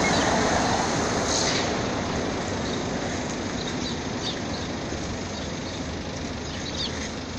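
Street traffic noise, loudest at the start and fading over the first few seconds as a vehicle passes and moves away, with a few faint short high chirps.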